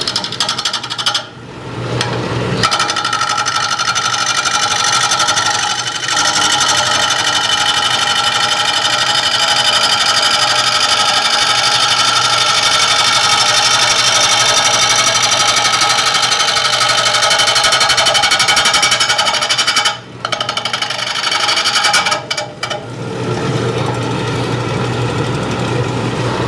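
Bowl gouge making roughing cuts on a spinning, out-of-round green red oak bowl blank on a wood lathe: a loud, rapid chatter as the tool strikes the blank's corners every revolution, since the cut is interrupted until the corners are knocked off. The cutting pauses briefly near the start and about twenty seconds in, leaving the lathe's hum.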